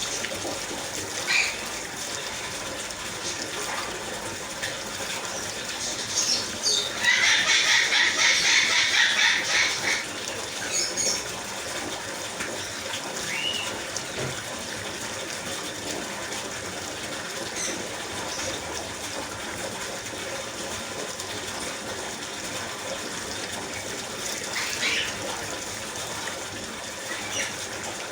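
Water running steadily while a ringneck parakeet bathes in it, with a louder burst of splashing about seven seconds in that lasts a few seconds. A few short calls from the bird are heard now and then.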